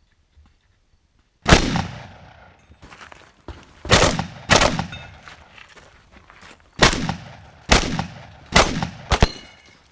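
12-gauge shotgun fired seven times on a practical shooting stage: a single shot, then the rest mostly in quick pairs, each shot ringing out and trailing off in echo.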